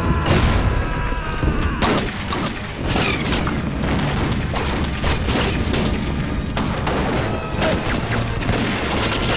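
Staged battle sound: rifle shots fired in an irregular fusillade, with explosions over a continuous low rumble.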